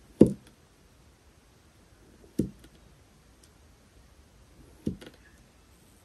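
Serrated knife slicing down through kinetic sand and meeting the board beneath, three strokes about two and a half seconds apart, each a dull thud with a brief crumbly tail; the first is the loudest.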